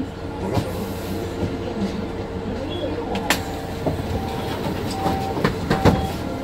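Cabin of a Mercedes-Benz Citaro C2 city bus under way: the steady drone of the moving bus, with interior fittings clicking and rattling. A few short, evenly spaced tones sound between about four and six seconds in.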